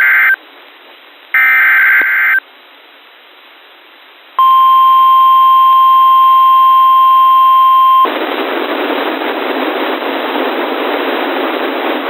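EAS/SAME digital header data bursts: the tail of one and a second full burst about a second later. After a two-second pause comes the steady single-pitch NOAA Weather Radio warning alarm tone for nearly four seconds, which cuts off into a steady hiss of static.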